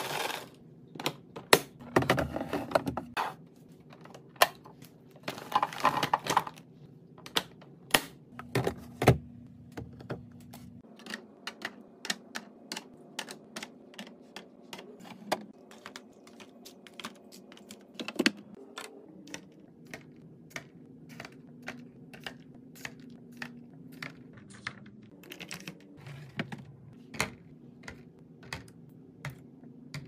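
Plastic food packages and bottles clicking and tapping as they are set one after another into clear plastic fridge organizer bins, a steady run of sharp little knocks. Within the first seven seconds come a few longer bursts of crinkly rustling, from tortilla chips and packaging being handled.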